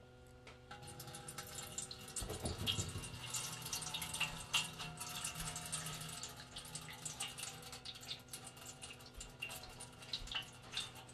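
Water being poured into the water tray of a heated Starfrit Rock smokeless electric grill: a faint trickle with many small ticks and drips.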